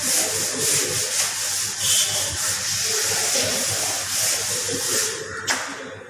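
Board duster rubbing chalk off a blackboard in repeated back-and-forth strokes, stopping with a short knock near the end.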